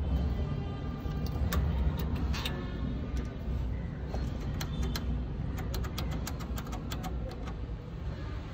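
Quick metallic clicks and clinks as the Piaggio Ape's clutch cable and release lever are handled, clustered in the middle of the stretch, over a steady low rumble.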